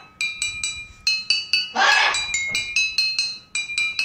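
Children's rainbow toy xylophone with metal bars being struck in a quick run of ringing notes, about three or four a second, with a short noisy burst about two seconds in.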